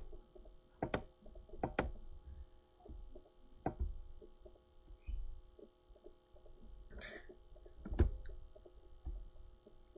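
A handful of sharp computer-mouse clicks at irregular intervals, the loudest near the end, over a faint steady hum.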